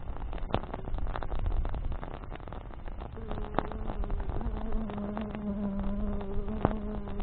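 Campfire burning, with sharp crackles and pops of burning branches over a low, steady rumble. From about three seconds in, a steady buzzing hum joins it.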